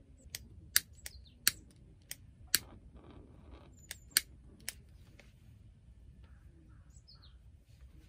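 A run of light, sharp clicks and taps at uneven spacing, about nine in the first five seconds, then quieter.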